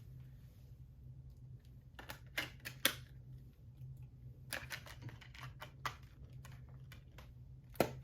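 Sharp clicks and taps from handling a metal SteelBook Blu-ray case, in two quick clusters about two and four and a half seconds in, over a low steady hum.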